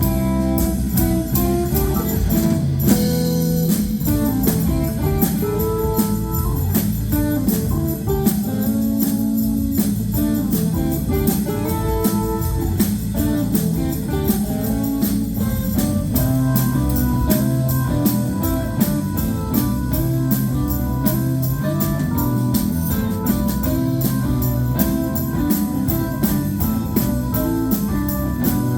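Live rock band playing an instrumental passage: electric guitar lines over organ, bass and a steady drum beat.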